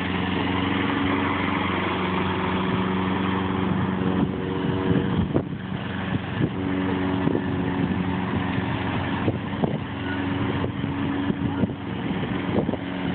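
Lawn mower engine running steadily, with scattered clicks and knocks from about four seconds in.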